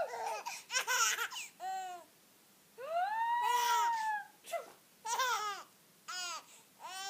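A baby's high-pitched squeals and laughs, in a string of short outbursts with two longer calls that rise and fall in pitch.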